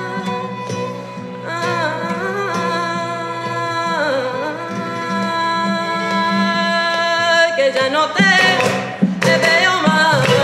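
Background music with a singing voice holding long, wavering notes over instrumental accompaniment, getting louder near the end.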